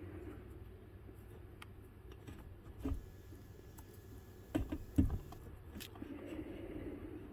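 Handling noise: a few light clicks and knocks, the loudest pair about four and a half to five seconds in, over a faint low hum.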